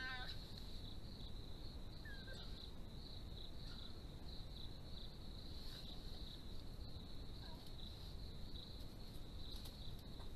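Crickets chirping steadily in a continuous, evenly pulsing high trill, over a low steady background hiss.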